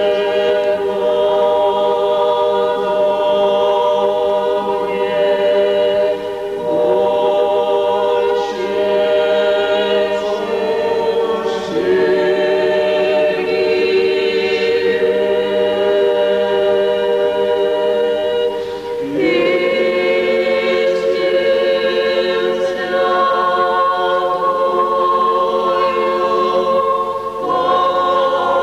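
A women's choir singing unaccompanied Orthodox church chant, in long held chords that move to a new chord every five to eight seconds.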